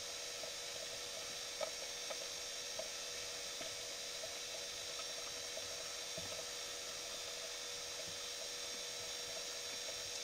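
Steady hiss with a constant electrical hum, and a few faint clicks, the sharpest about one and a half seconds in.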